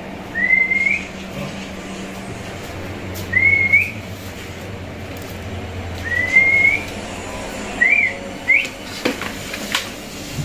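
Short, rising whistled notes around 2 kHz, three about three seconds apart and then two quicker, shorter ones, over a low steady hum. A couple of sharp knocks near the end.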